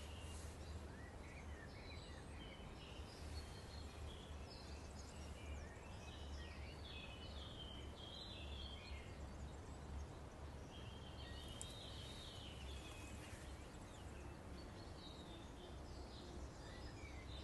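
Faint outdoor ambience of birds chirping and calling in scattered short phrases over a steady low rumble.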